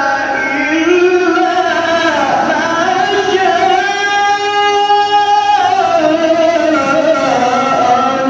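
A man's voice reciting the Quran in a slow, melodic tajweed style, drawing out long ornamented notes that glide up and down in pitch. The longest note is held steady from about four seconds in to about five and a half seconds in.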